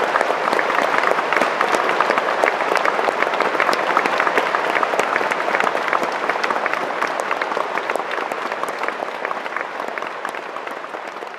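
Concert-hall audience applauding: a dense patter of many hands clapping, with no music. It fades down over the last few seconds.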